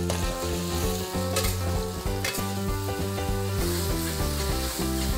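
Sauced spaghetti and vegetables sizzling in a hot stainless-steel wok while a spatula stirs and tosses them. The spatula clinks sharply against the wok a couple of times.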